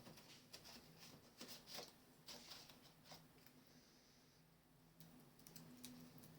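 Faint, irregular tapping and scratching of birds' feet as they walk about, most frequent in the first three seconds, over a faint low steady hum.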